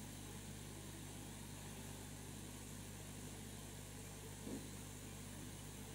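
Faint, steady low electrical hum, with one brief soft sound about four and a half seconds in.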